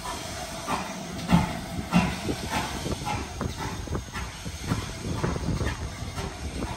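Steam hissing, with irregular knocks and clanks.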